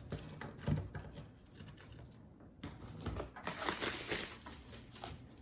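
Expandable metal bangles being handled, clinking and knocking against each other, with a stretch of rustling and clicking about halfway through.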